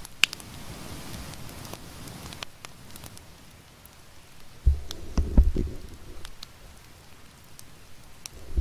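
Campfire crackling, with scattered sharp pops. A few dull low thumps come about five seconds in.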